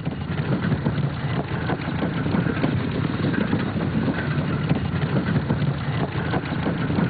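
Motor vehicle engine running steadily, with the rumble of laden cart wheels rolling over a wet road.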